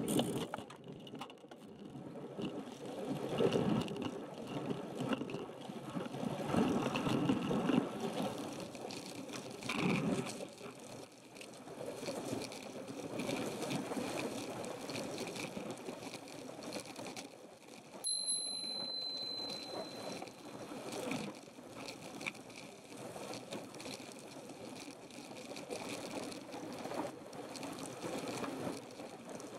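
Wind buffeting the microphone of a handlebar-mounted camera on a moving road bike, along with the bike's rolling noise, rising and falling. About two-thirds of the way through, a brief high electronic beep sounds.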